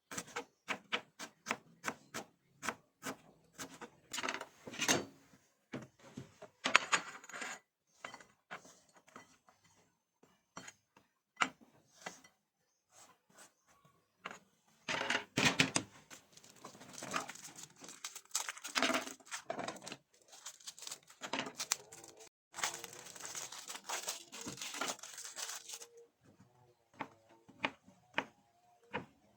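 Kitchen food preparation: a run of quick, even knife taps on a cutting board, then scattered knocks and longer stretches of rustling and tearing, as of leaves being handled and torn.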